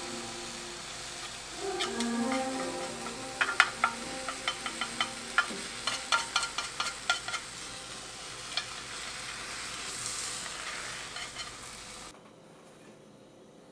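Egg omelette sizzling in an oiled square tamagoyaki pan over a gas flame, with a run of quick clicks about three to seven seconds in as chopsticks tap and push the rolled omelette against the pan. The sizzle stops suddenly near the end.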